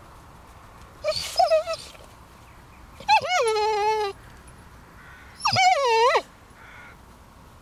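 A puppy whining three times: a short yelp-like whine about a second in, then two longer high-pitched whines, the first falling in pitch and the second dipping and rising again.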